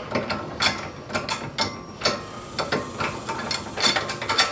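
A ratchet wrench with a 19 mm socket clicking in short, uneven runs of strokes as it spins a loosened lug nut off a car wheel.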